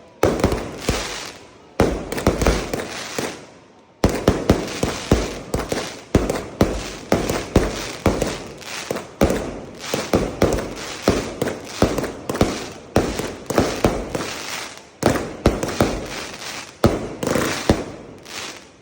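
Fireworks going off: a bang at the start and another about two seconds in, each trailing off, then from about four seconds a rapid barrage of bangs, roughly two a second, thinning out near the end.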